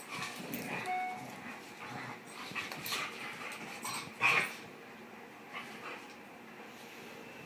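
Two dogs play-wrestling: scuffling and short dog noises, including a brief whine about a second in and the loudest burst about four seconds in.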